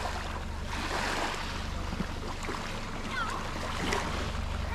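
Small waves lapping and washing on a sandy shore, with wind buffeting the microphone and a low steady rumble underneath.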